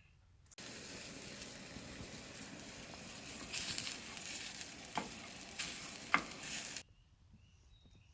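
Steady sizzling hiss with scattered crackles and pops. It starts suddenly about half a second in and cuts off sharply near seven seconds, and faint chirps follow.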